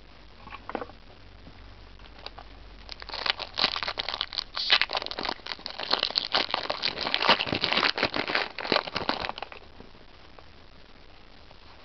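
Foil Yu-Gi-Oh booster pack crinkling and tearing as it is ripped open by hand: a dense run of crackles that starts about three seconds in and stops about six seconds later.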